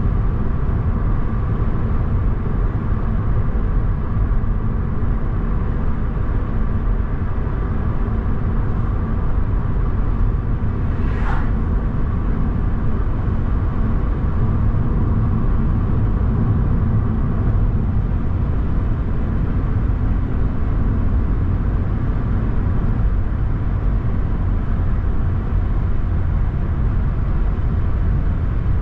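Car driving along a road: a steady low rumble of tyre and engine noise. A brief high sound cuts through about eleven seconds in.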